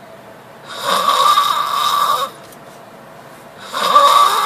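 A man snoring loudly in his sleep: two long snores about three seconds apart, the second starting near the end.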